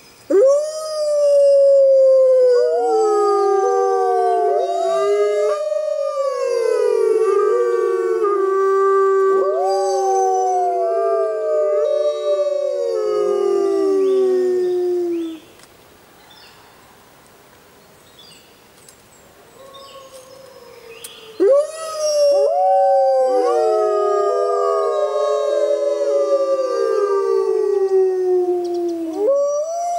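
Gray wolves howling in chorus: several long, overlapping howls at different pitches, each swooping up at its start and sliding slowly down. The chorus stops about halfway through, and after a lull of about six seconds a new round of howls begins.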